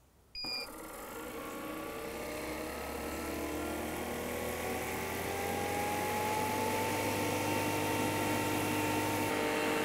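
A short beep, then a Hilmor brushless DC refrigerant recovery machine running: its compressor hums steadily, with tones that slowly rise in pitch, while it pulls refrigerant out of a mini split and the suction pressure falls toward zero psi.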